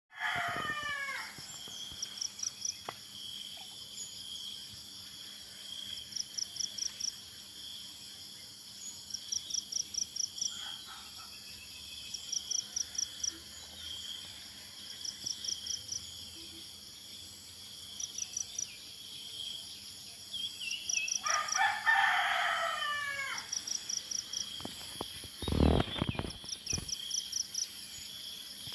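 A rooster crowing twice, once at the start and again about three-quarters of the way through, over a steady high insect drone and short bursts of rapid chirps repeating every second or two. A couple of low bumps sound near the end.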